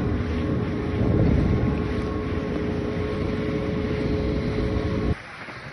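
Engine of a small motorised watercraft running at speed, with a steady engine whine over rushing water and heavy wind on the microphone. It stops abruptly about five seconds in.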